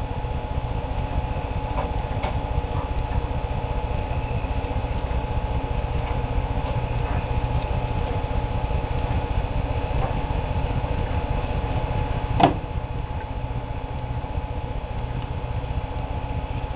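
Steady mechanical hum and hiss with two steady tones and a fast, faint ticking underneath; a single sharp click about twelve seconds in.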